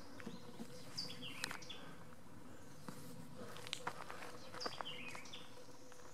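A songbird singing a short phrase of falling notes twice, about three and a half seconds apart, with faint scattered clicks in between.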